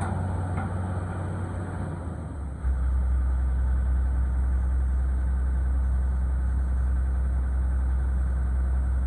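Excavator's diesel engine running steadily. About two and a half seconds in, its low note drops and gets louder, then holds steady.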